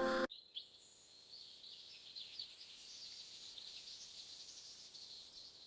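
Background music cuts off abruptly right at the start, leaving faint, irregular high-pitched chirping of a natural outdoor ambience.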